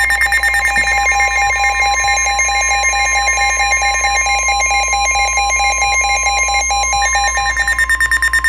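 NOAA Weather Radio warning alarm tone: a steady 1050 Hz tone held throughout, with a rapidly pulsing, warbling electronic alert pattern over it. It is the attention signal that comes before a broadcast warning, here a flash flood warning.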